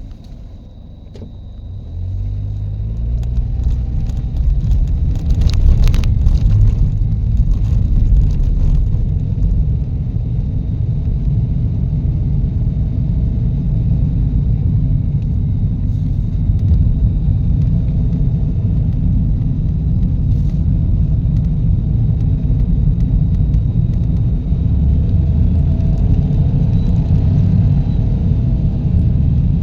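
Car on the move: a low rumble of road and engine noise that builds up about two seconds in and then holds steady, with a few short clatters about five to nine seconds in.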